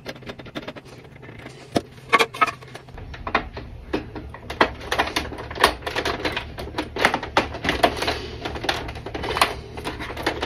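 Irregular clicks and taps of hard plastic toy parts being handled and pressed together as a broken piece is glued back on. They come more thickly from about four seconds in.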